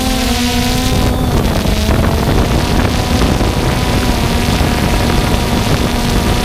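DJI Phantom 2 quadcopter's electric motors and propellers humming steadily in flight, the pitch wavering slightly, with wind buffeting the onboard microphone.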